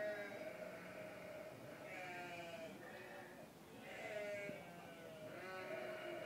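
Livestock bleating, several animals overlapping, with wavering calls about a second long repeating every second or two.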